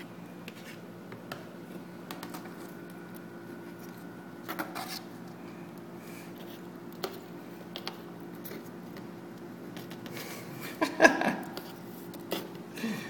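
A plastic stick tapping and scraping against paper and cardboard in a box: scattered small clicks and scrapes, with a louder cluster of knocks and scrapes about eleven seconds in. A steady low hum runs underneath.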